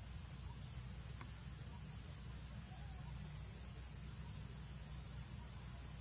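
Outdoor natural ambience: a steady high-pitched insect drone with a faint short chirp repeating about every two seconds, over a low steady rumble, and one soft click a little after a second in.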